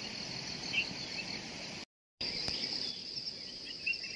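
Steady high-pitched insect trill, with a few faint bird chirps in the first second. The sound drops out briefly about halfway through and then resumes.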